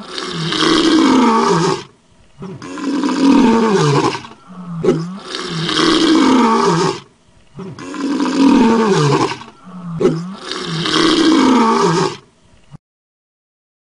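Lion roaring: loud, throaty roars in about five near-identical bouts roughly every two and a half seconds, cutting off suddenly near the end.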